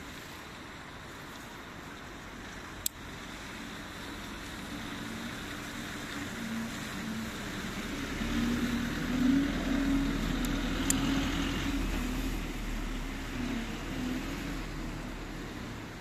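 A motor vehicle passing: a low engine rumble swells over steady background noise, then fades toward the end. Two sharp clicks of the folding knife's blade mechanism, several seconds apart.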